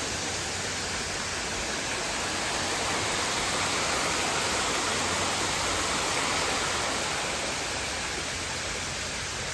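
Water pouring down a small artificial rock waterfall, a steady rushing that grows a little louder in the middle and eases near the end.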